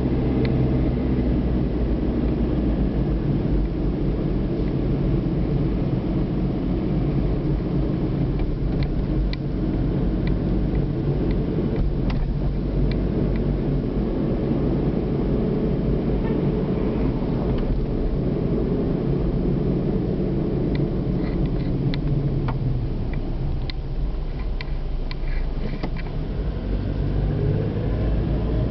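Car engine and tyre noise heard from inside the cabin while driving steadily along a street: a continuous low rumble with a few faint scattered clicks.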